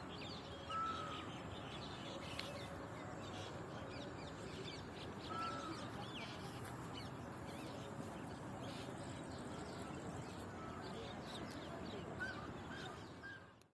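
Garden bird chorus: many small birds chirping rapidly, with a few louder calls standing out over a steady background hush.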